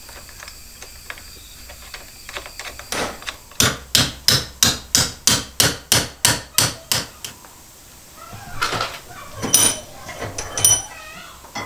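Hammer striking a steel tube clamped in a bench vise: a steady run of about a dozen sharp blows at roughly three a second, followed by a few lighter metallic clanks and scrapes with some ringing.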